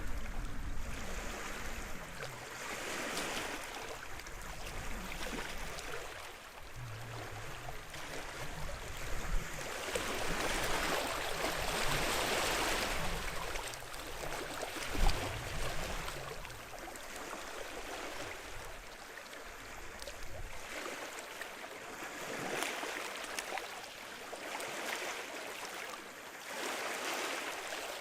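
Sea waves washing onto the shore, swelling and falling back every few seconds, with one short sharp knock about halfway through.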